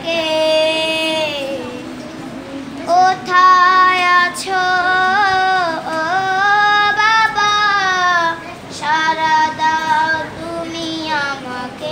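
A child singing a Bengali gazal about a father: one unaccompanied voice in long, held melodic phrases, pausing for breath about two seconds in and again near the end.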